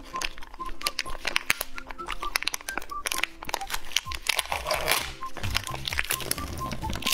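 Plastic candy packaging crinkling and crackling in the hands as it is worked open and its lid peeled back, with a short rustling tear about halfway through. Background music with light repeated notes plays along, and a bass line joins in after about four seconds.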